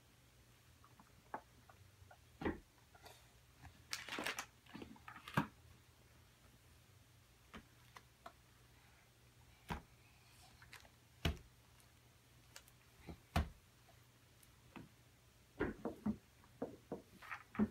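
Small plastic toys being handled and set down: scattered light clicks and taps, a longer rustle about four seconds in, and a quick run of clicks near the end.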